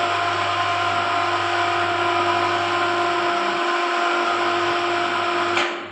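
Compact electric wire-rope hoist motor running steadily with a held whine as it lowers the lift platform, then switched off near the end, stopping abruptly with a click.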